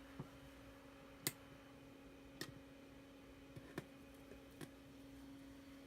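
Scattered vinyl surface clicks and pops, about six of them at irregular intervals, from a record playing on a Crosley Keepsake with its Sanyo Fisher MG09 magnetic cartridge, over a faint steady hum.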